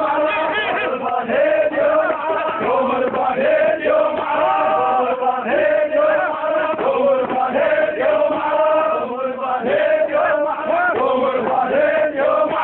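A crowd of men chanting an Iraqi tribal hosa together, many voices overlapping in a loud, continuous chant.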